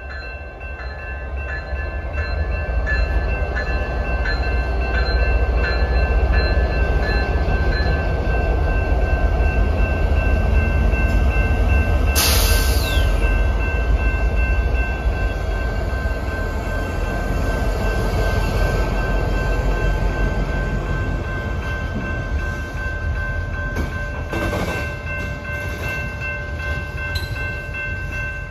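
BNSF freight train headed by EMD GP60 diesel locomotives going by, a deep engine and rail rumble that swells, peaks in the middle and eases off. A bell rings about twice a second for the first several seconds, and a brief sharp noise cuts in about twelve seconds in.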